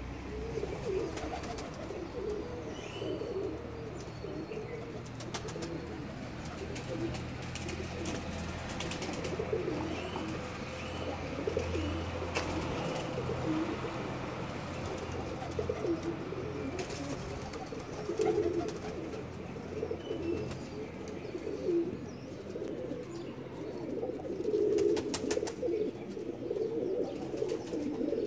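A group of domestic pigeons cooing continuously, several birds overlapping, with a few scattered short clicks.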